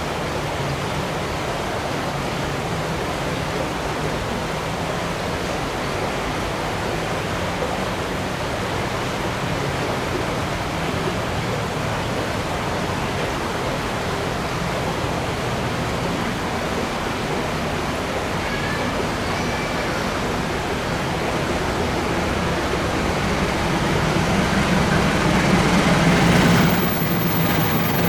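Approaching diesel-electric locomotive hauling a passenger train, heard as a steady rushing noise that grows slowly louder, with the engine's low hum swelling in the last few seconds. Shortly before the end the sound changes abruptly.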